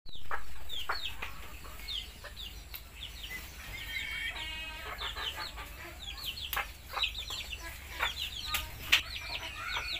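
Chickens feeding: small chicks peeping with quick high chirps throughout, a chicken giving one short cluck about four and a half seconds in, and a few sharp taps of beaks pecking grain off the concrete floor.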